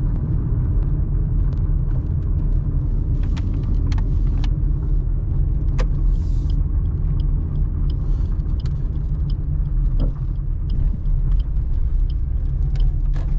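Car driving slowly, a steady low rumble of engine and road noise, with scattered light clicks.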